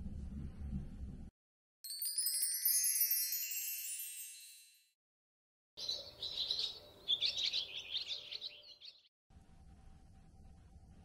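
Background music stops about a second in, followed by an edited chime sound effect: a run of bright wind-chime tones that rings out and fades over about three seconds. Then a sound effect of small birds chirping and tweeting for about three seconds, which cuts off abruptly and leaves faint room tone.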